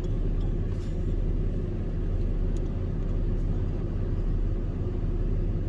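Steady low rumble of a truck driving on the road, engine and tyre noise heard from inside the cabin.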